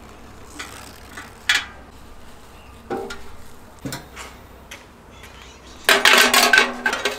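Metal knocks and rattles from a sheet-metal portable charcoal grill being handled: a few light knocks spread out, then a dense, louder clatter near the end as a wire grate is set into the grill body.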